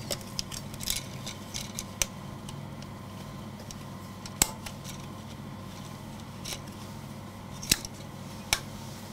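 Gloved hands threading 16 mm film through the rollers and guides of a flatbed film editing table: scattered clicks and snaps of film and metal parts, the sharpest about four seconds in and twice near the end, over a steady low hum.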